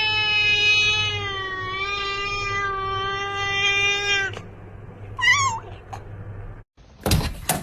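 A cat yowling in one long, drawn-out call that ends about four seconds in, then a short wavering meow. Near the end come a couple of sharp knocks.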